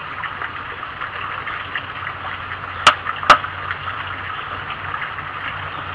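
Wood fire burning in a rocket stove: a steady low rumble with light crackling throughout. About three seconds in, two sharp pops come less than half a second apart.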